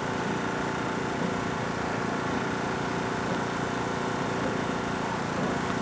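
Steady engine hum with a few steady tones over an even background noise.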